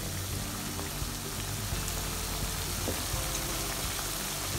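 Chicken skin sizzling as it fries in its own rendered fat, with faint pops, under background music.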